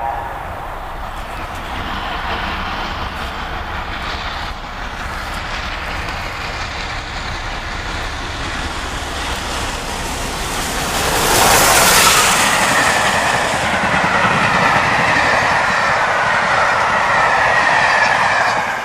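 Streamlined steam locomotive hauling a passenger train at speed, approaching and passing close by, loudest as the engine goes past about 11 to 12 seconds in. The coaches then rattle past with a clickety-clack of wheels over the rail joints and a high ringing from wheels and rails.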